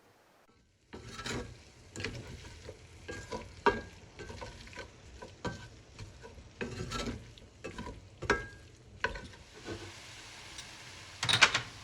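A spoon stirring chopped tomatoes into frying onion masala in a pot, scraping and knocking irregularly against the pot over a frying sizzle. A louder clatter of knocks comes near the end.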